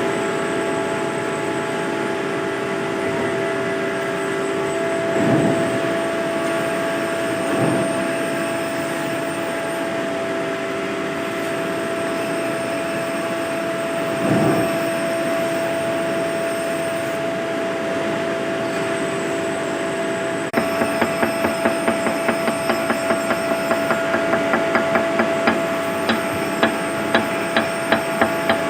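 Steady industrial machinery hum with a few dull thuds. About two-thirds of the way through, a fast, even run of sharp hammering blows begins, about two to three a second, from work on the ladle's refractory lining.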